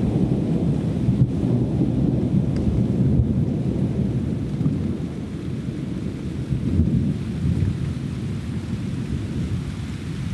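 Rolling thunder rumbling continuously, swelling and easing in waves, with rain falling.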